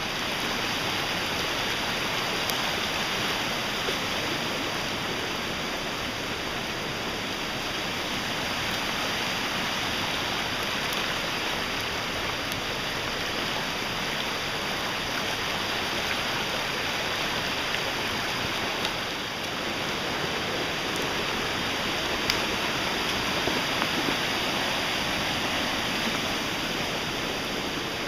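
Floodwater rushing, a steady, unbroken wash of water noise.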